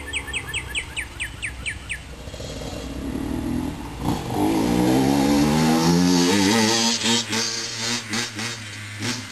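Honda CR85R two-stroke dirt bike engine revving up, its pitch rising over a few seconds and loudest a little past the middle, then breaking into a run of sharp, irregular crackles near the end. A fast, even chirping runs through the first two seconds.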